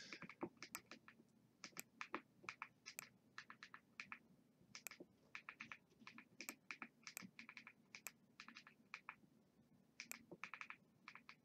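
Faint clicking of a remote control's buttons, pressed in quick irregular runs of several clicks, as digits are entered on an on-screen number pad.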